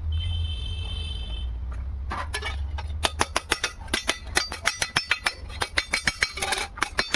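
Metalwork on a clutch plate being welded: a brief high whine, then a quick irregular run of sharp metallic clicks and cracks, several a second, over a steady low hum.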